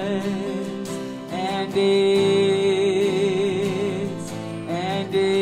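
Worship song played live: a woman sings long held notes with vibrato over acoustic and electric guitar, sliding up into a new note near the end.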